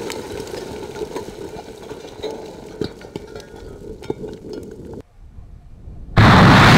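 The noise of a large explosion dying away, with scattered sharp clicks of debris coming down. After a short lull, another very loud blast goes off abruptly near the end.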